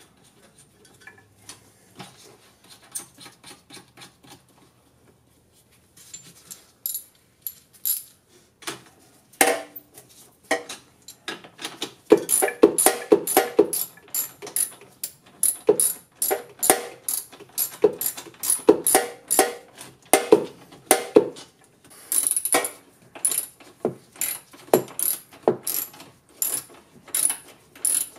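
Hand ratchet wrench clicking in repeated short strokes, with metal tool clinks. The clicks are sparse and quiet at first, then come in quick runs from about halfway on.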